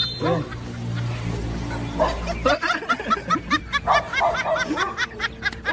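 High-pitched giggling laughter: a fast string of short 'he-he' bursts starting about halfway in and running on, with a low steady rumble under the first half.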